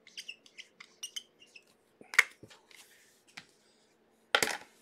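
Trading cards and hard plastic card holders being handled on a tabletop: small clicks and rustles, one sharp click about two seconds in, and a short scrape of plastic near the end.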